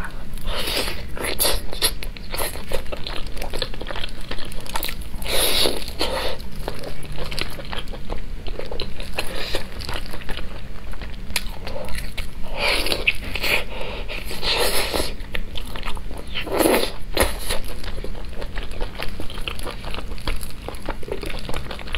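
Biting and chewing of sauce-coated chicken drumsticks, wet mouth sounds and meat pulling apart, with several louder bites spread through.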